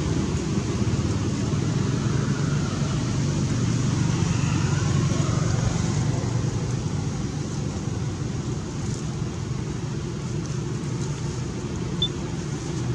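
A steady low mechanical rumble with a faint hum, unchanging throughout.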